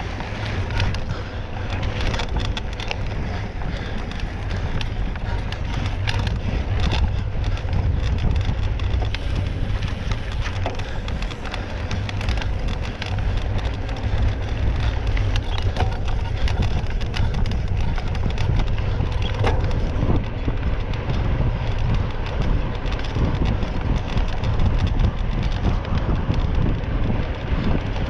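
Heavy wind rumble on the microphone, with dense crackling and rattling clicks all through.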